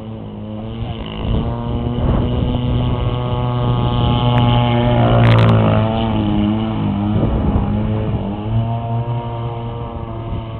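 Two-stroke RC model boat engine running steadily. It grows louder toward the middle, where its pitch dips as it passes closest, then it eases off again.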